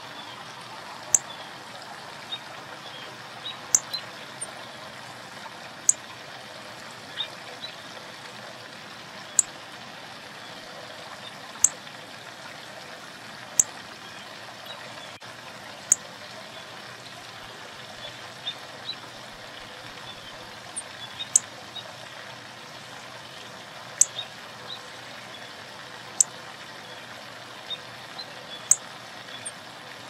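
Northern cardinal giving sharp, high chip notes, one every second or two, over a steady hiss of running water. Fainter, softer chirps sound in between.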